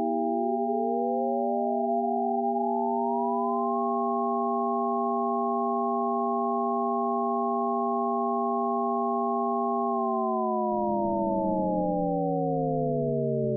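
Electronic soundtrack of several held pure sine tones sounding together as a chord. One tone glides up over the first few seconds and then holds; about ten seconds in, all the tones slide down in pitch together as a low rumbling noise comes in.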